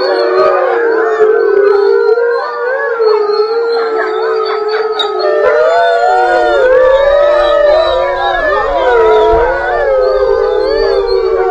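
A pack of wolves howling together in chorus: many overlapping voices gliding up and down over one long held lower note. This is the pack howling that goes up when one of its members is taken out of the enclosure.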